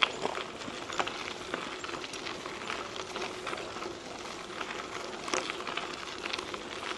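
Trek 4500 mountain bike tyres rolling over a gravel trail: a steady crunching with many small, irregular pops and clicks of stones under the wheels.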